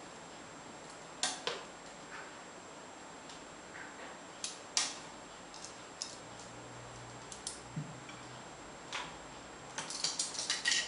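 Light, scattered clicks and taps of utensils against a serving dish, a second or more apart, turning into a quick cluster of clinks near the end.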